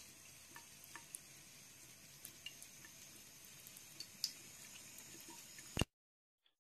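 Faint, thin stream of water running from a bathroom faucet into a sink basin, with a few small scattered ticks and drips; it cuts off suddenly near the end.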